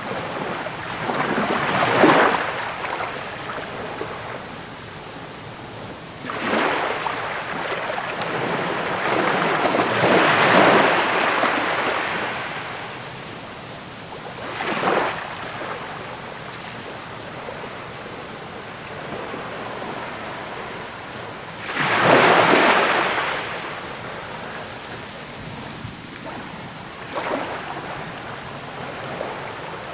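Ocean waves breaking and washing in as foaming surf, a steady hiss of water broken by a surge every few seconds; the loudest surges come about 2, 10 and 22 seconds in.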